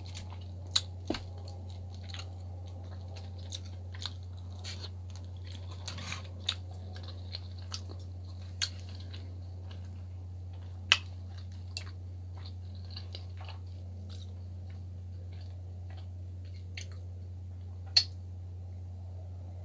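Close-miked mouth sounds of chewing baked salmon: scattered wet clicks and smacks, the loudest near the end, over a steady low electrical hum.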